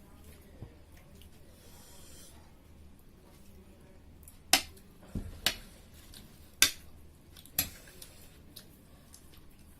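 Four sharp clicks of tableware knocking on a plate, about a second apart, with a soft thud between the first two.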